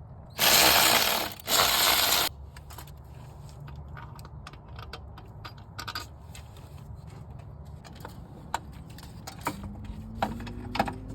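Two loud bursts of hissing noise, each about a second long, then scattered light metallic clicks and clinks of tools and fasteners being handled.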